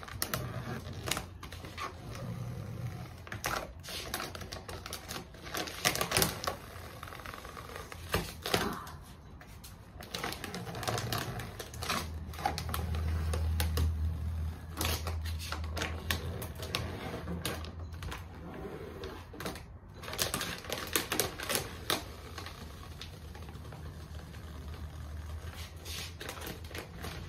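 Vinyl car wrap being peeled off a car door, the adhesive film crackling and rustling in quick, irregular clicks as it comes away from the paint. A low hum comes in about halfway through.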